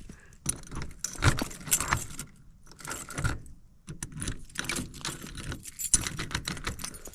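Small metal pieces jingling and clinking in irregular bursts throughout, with scuffing between them.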